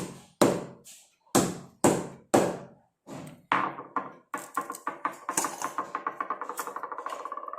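Dried ginger being pounded with a pestle: a few heavy, spaced knocks, then a quicker run of strikes, about four or five a second, with a ringing note building under them.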